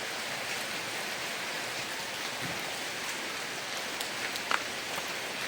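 Heavy rain falling steadily, with scattered individual drops ticking on nearby surfaces and one sharper tap about four and a half seconds in.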